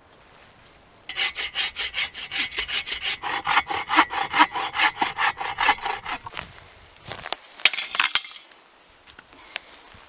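Hand saw cutting dead branches into firewood, with fast, even back-and-forth strokes for about five seconds. A few sharp wooden cracks and knocks follow.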